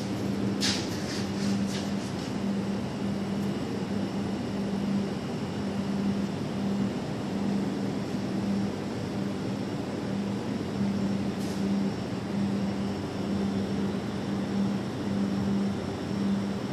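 Steady hum and air rush of commercial kitchen machinery such as the air conditioning and refrigeration, with a low tone that pulses evenly throughout. A few light clicks near the start.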